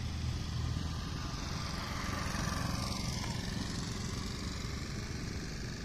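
A motor vehicle's engine running, with a steady low hum.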